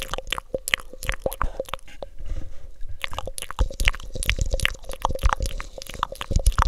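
Cupped wet mouth sounds made into a cone over the microphone: rapid tongue and lip clicks, smacks and pops, thinning out for about a second a little after two seconds in.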